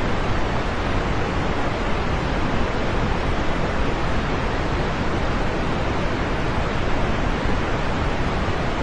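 Rain falling steadily: a dense, even hiss with no separate drops, thunder or changes.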